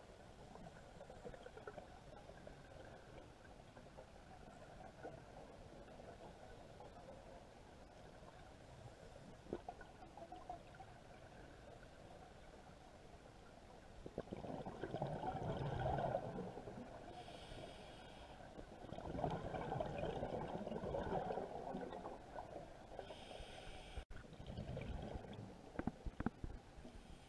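A scuba diver breathing through a regulator, heard underwater through the camera housing: a faint steady hiss at first, then about halfway through a bubbling exhalation, a short hiss, and a second longer bubbling exhalation, with more bubbling near the end.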